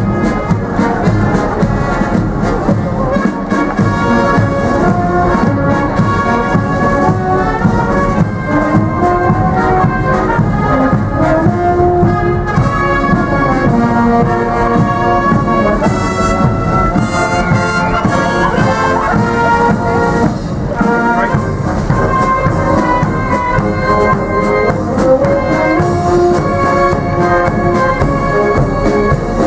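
Military marching band playing a tune while marching, led by brass: tubas, trombones, trumpets and saxophones with many notes sounding together.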